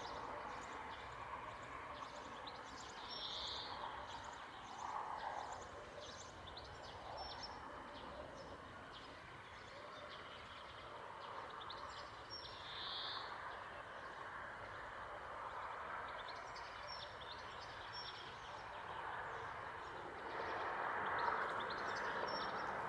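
Outdoor nature ambience: birds chirping in short scattered calls, two of them louder, over a steady background hiss that swells slightly near the end.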